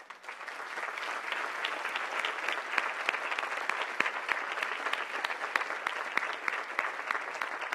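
Audience applauding, many hands clapping together; it builds over the first second and then holds steady.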